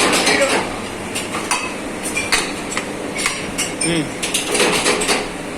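Metal ceiling-fan parts being handled, clinking and knocking against each other in a run of irregular sharp taps and clanks.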